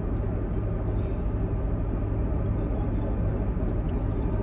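Steady low rumble of a car heard from inside the cabin, with a few faint clicks near the end.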